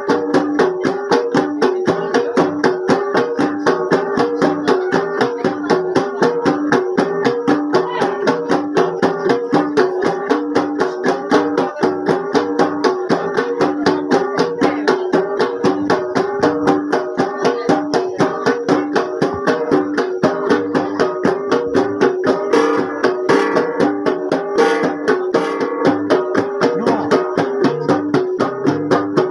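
Kalinga gangsa ensemble playing tupayya: several flat bronze gongs held on the players' laps and struck with the palms, ringing in a fast, steady, interlocking beat.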